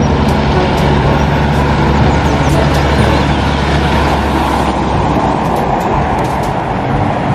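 A truck engine running steadily: a low drone under a dense wash of noise.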